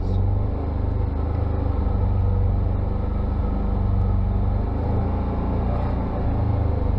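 Side-by-side UTV engine running steadily at low speed, a constant low drone heard from on board.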